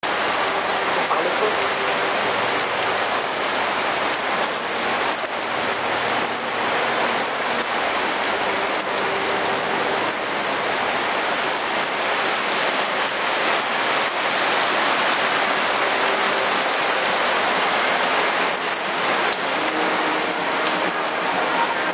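Heavy rain falling steadily onto a flooded street.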